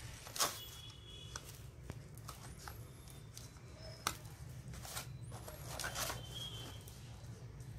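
Small cardboard firework boxes being handled on a floor: a few light knocks and taps, the sharpest about half a second in, over a steady low hum. Faint high chirps come now and then.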